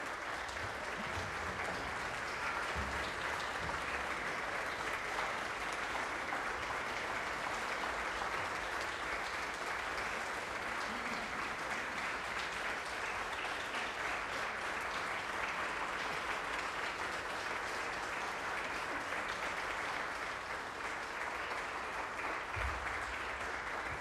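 Concert audience applauding steadily, a dense even clapping that holds its level as the string ensemble stands for its bow at the end of the performance.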